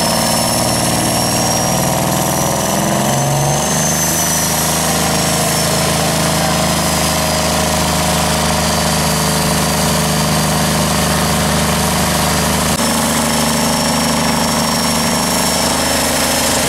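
Old diesel truck engine working hard under full load as it drags a tractor-pulling sled. Its steady note drops about three and a half seconds in and steps up again about four seconds before the end.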